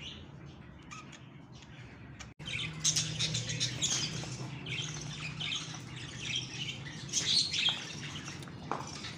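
A flock of budgerigars chattering and chirping, many short high calls overlapping. About two seconds in, the sound cuts out for an instant and comes back louder and busier.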